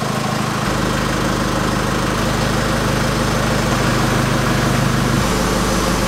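Chevy Colorado ZR2's 2.8 L Duramax four-cylinder turbodiesel running steadily at low speed as the truck creeps into a garage.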